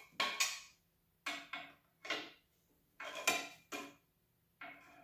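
Hand tools and metal parts clinking and knocking against each other, about eight separate short clinks spaced a few tenths of a second to a second apart, each ringing briefly.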